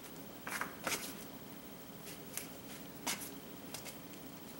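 Faint rustling and several brief soft scrapes of hands pressing flour onto cube steak in a shallow dish, dredging the meat before browning.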